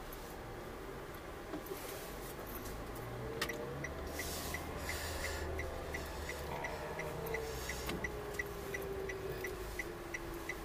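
Car turn-signal indicator clicking evenly, about three clicks a second, starting a few seconds in, over the low hum of the engine and road heard inside the cabin. A faint whine slides slowly in pitch in the background.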